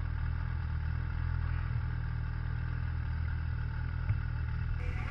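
Snowmobile engine idling at a steady, unchanging pitch.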